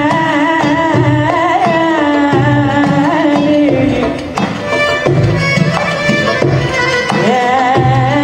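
Middle Eastern belly dance music: a wavering, gliding melody over a steady, repeating drum beat, with a brief dip in loudness about four seconds in.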